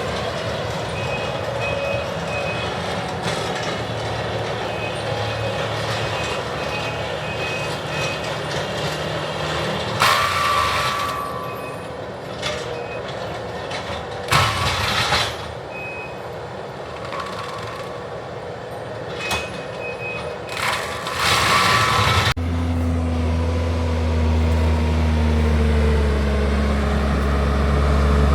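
Heavy land-clearing machinery running, with a reversing alarm beeping over it and several loud bursts of hissing noise. About 22 seconds in, the sound cuts to a deeper, steadier engine rumble.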